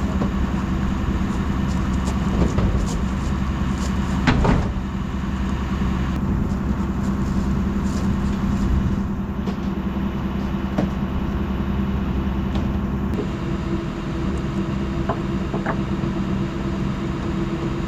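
Motor vehicle engine running steadily while driving, with a brief knock or rattle about four seconds in.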